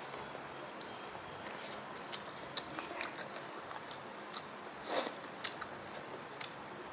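A person eating: chewing with scattered wet mouth clicks and smacks, one louder one about five seconds in, over a steady background hiss.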